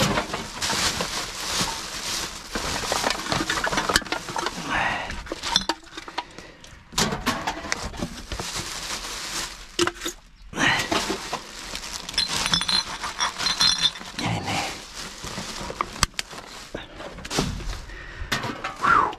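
Plastic rubbish bags rustling and crinkling as rubbish is pulled about by hand, with aluminium cans and glass bottles clinking against each other.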